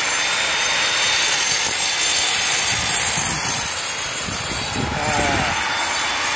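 Hand-held angle grinder with a stone-cutting disc grinding a concrete wall, a steady harsh grinding noise. The grinder is taking down rough, uneven concrete to level the surface.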